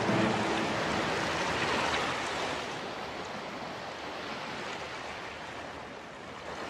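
Ocean waves washing in a steady rush of surf, slowly fading.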